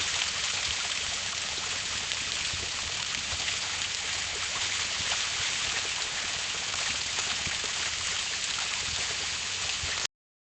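Water running from a garden hose, a steady hiss. It cuts off suddenly near the end.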